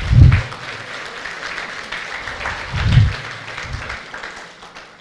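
Audience applauding, fading away near the end, with two dull, deep thumps, one at the start and one about three seconds in.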